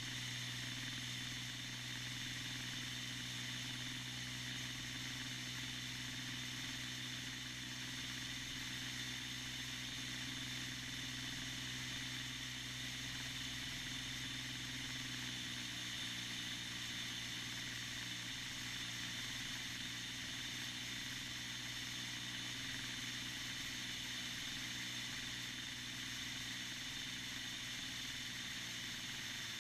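Cessna 172S's four-cylinder Lycoming IO-360 engine and propeller running steadily in flight on approach to landing, heard from a camera on the wing strut with air rushing past. The engine note shifts slightly about halfway through.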